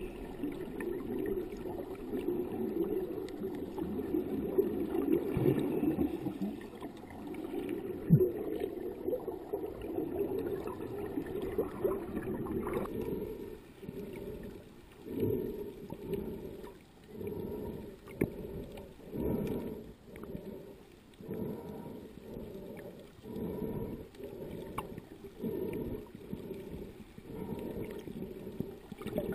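Muffled underwater sound from a camera held just below the sea surface: a steady low water rush and sloshing, which about halfway gives way to a regular swishing pulse repeating roughly every second and a half.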